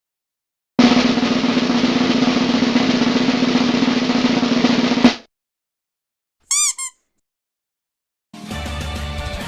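Snare drum roll lasting about four seconds, ending on a sharp hit. A second or so later come two short high blips, and music starts near the end.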